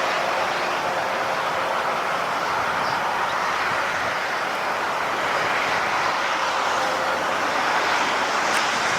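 Swollen Glomma river floodwater rushing steadily in an unbroken hiss of moving water.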